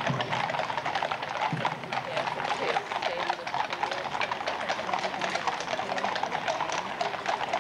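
Hooves of a column of cavalry horses on a paved road: many overlapping, irregular clip-clops.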